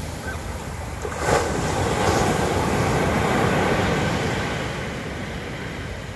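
Ocean surf: a wave breaks about a second in and its wash swells, then slowly fades over the next few seconds.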